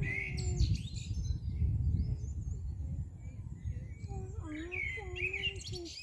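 Songbirds singing in quick, high-pitched bursts, once in the first second and again over the last second and a half, over a low rumble of wind on the microphone.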